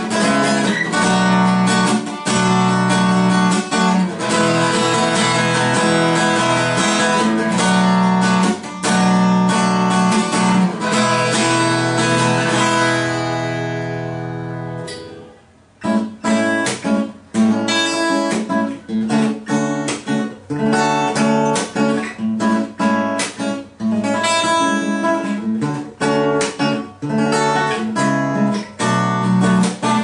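Strimberg JS 02C jumbo acoustic guitar with light 009 strings, played unplugged, giving a somewhat bright but soft tone. Steady strummed chords until a chord is left to ring and die away about thirteen to fifteen seconds in; after a brief gap the playing resumes with shorter, choppier strokes.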